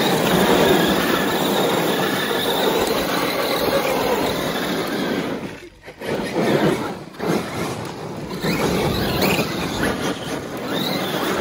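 Electric RC monster trucks, a Traxxas Summit among them, driving hard on loose red dirt: motors whining and tyres scrabbling and spitting gravel. The sound drops out briefly about six and seven seconds in.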